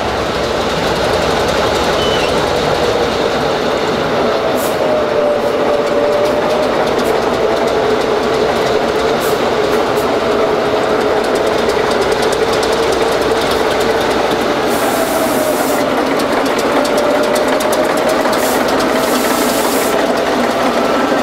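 MaK V65 diesel locomotive running steadily at idle: a constant engine drone with a slightly wavering whine, and light clicks over it from a few seconds in.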